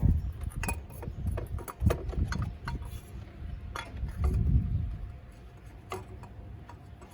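Scattered clicks, knocks and dull thumps of a part being worked down into a truck's engine bay and bumping against the engine fan, loudest at the start, about two seconds in and around four seconds in.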